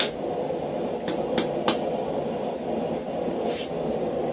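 Hand hammer striking hot steel on a steel block, a few short sharp blows in the first two seconds, over a steady rumble of road traffic.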